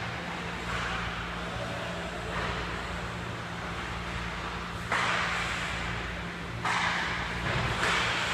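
Ice-hockey skate blades scraping and carving the rink ice in bursts of hissing noise, with sudden sharp scrapes about five seconds in and again twice near the end, over a steady low hum.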